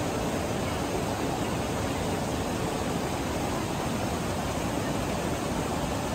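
A swollen mountain stream rushing over boulders: a loud, steady, unbroken rush of whitewater.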